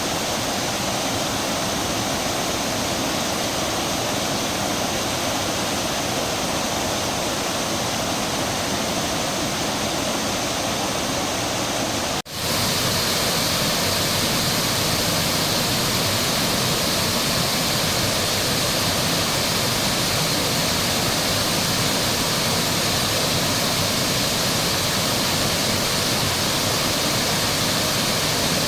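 Steady rush of water pouring over a wide, low waterfall. About twelve seconds in the sound drops out for a moment at a splice, then resumes slightly louder and brighter.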